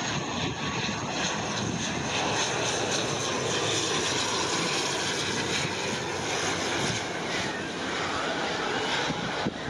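Aer Lingus Regional ATR 72 turboprop airliner on final approach with gear down, its two turboprop engines and propellers running in a steady, full rush of sound as it passes close by.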